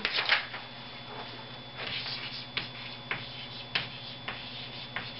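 Marker writing on a board in a series of short scratchy strokes, with a faint steady hum underneath.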